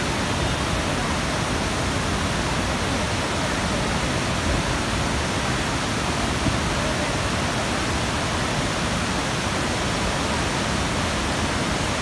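Waterfall swollen with monsoon floodwater, a heavy torrent of muddy water pouring over rock ledges: a steady, even rushing noise that does not let up.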